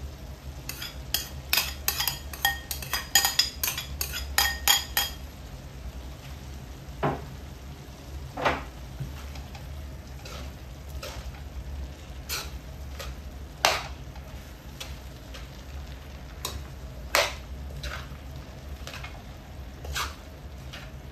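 A spatula clicking rapidly against a bowl as diced carrots are scraped out into an aluminium wok, then stirring: single scraping strokes of the spatula across the wok through minced meat and diced vegetables, every second or few, over a steady low hum.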